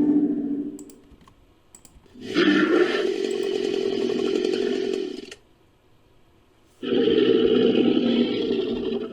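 Fictional Helicoprion creature sound effect: a call fades out in the first second, then two long calls of about three seconds each follow, a second and a half apart.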